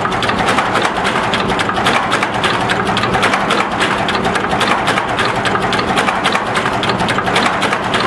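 Radial component insertion machine running at speed: a fast, even clatter of clicks from its moving parts over a steady hum.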